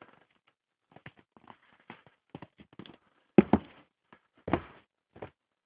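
Footsteps crunching in fresh snow, a string of irregular soft crunches with two heavier footfalls a little past halfway.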